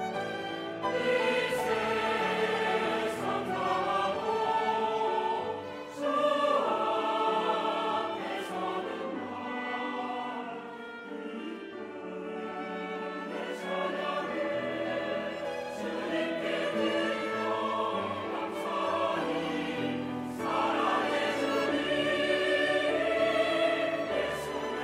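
Mixed choir of men's and women's voices singing a sacred anthem in Korean, with grand piano accompaniment. The voices come in about a second in.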